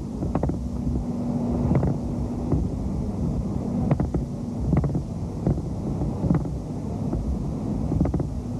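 Wind rumbling on a camcorder microphone, with scattered clicks and crackles.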